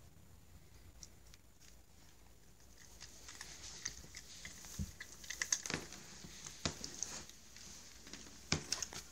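Cat crunching Greenies dental cat treats: irregular small crunches and clicks, sparse at first and coming thick and fast from about three seconds in.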